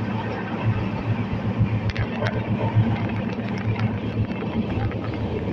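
Passenger train running along the track: a steady rumble with a few short sharp clicks from the wheels and rails about two seconds in.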